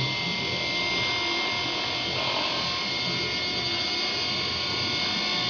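A small electric motor running steadily: a constant whine made of several high tones over a low hum.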